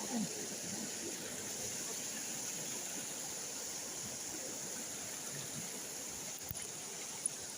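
Small river stream flowing and rippling over rocks, a steady rushing hiss, with a couple of sharp clicks near the end.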